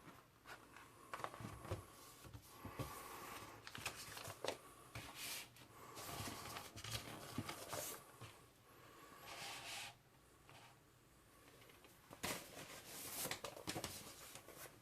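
Paper and cardboard rustling and scraping as a vinyl LP's jacket and sleeves are handled, with scattered light knocks and clicks.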